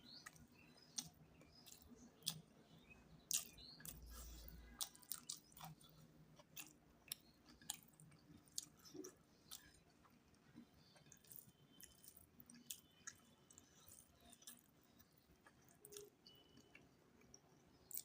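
Faint close-up chewing and mouth sounds of a person eating: many short soft clicks and smacks at an uneven pace, with a brief low rumble about four seconds in.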